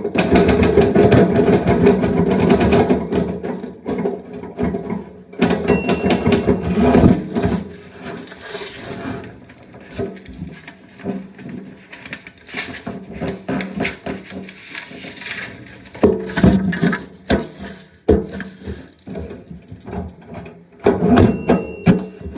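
Typewriter keys struck in fast runs of sharp clicks, thinning later into scattered bursts of strokes. A short ringing ding, the typewriter's line-end bell, sounds about six seconds in and again near the end.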